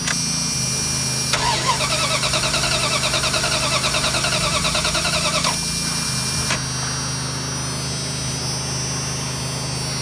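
1997 Dodge Ram's 5.2-litre V8 cranked over by its starter motor on a nearly dead battery during a compression test of cylinder 5: a pulsing whine, about six pulses a second, for roughly six seconds. Then the cranking stops and a steady hum remains.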